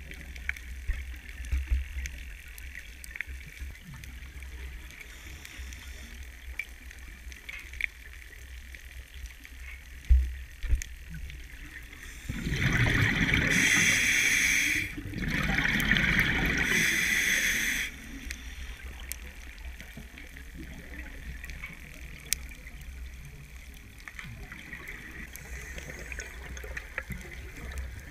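Underwater ambience at a reef: a steady low rumble with scattered small crackles and clicks. About halfway through comes a loud hissing rush of a diver's exhaled air bubbles, in two bursts of a couple of seconds each.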